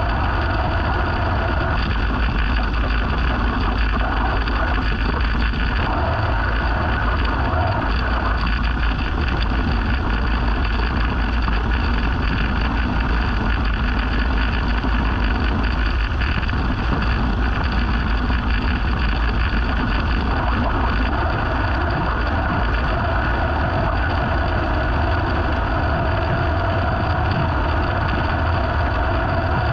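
Small petrol engine of lawn-care equipment running steadily at a constant speed, with a deep, even hum.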